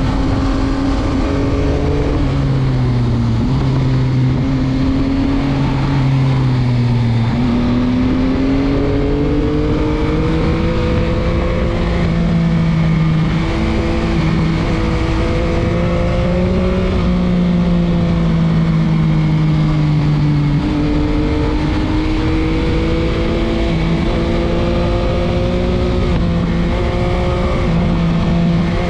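Yamaha MT-09 (2021) three-cylinder engine heard from the rider's chest, revs rising and falling through corners with several sudden drops in pitch, over a low wind rumble on the microphone.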